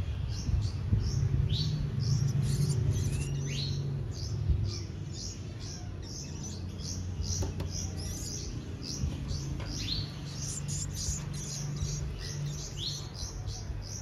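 Nestling songbirds begging with rapid, high-pitched chirps, about two or three a second, while being hand-fed, with a few short rising squeals mixed in. A steady low hum runs underneath.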